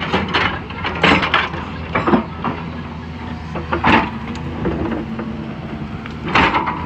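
Excavator diesel engine running steadily, with several loud knocks or clanks over it from the machine at work.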